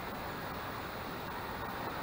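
Steady rushing of flowing river water, with an uneven low rumble of wind on the microphone.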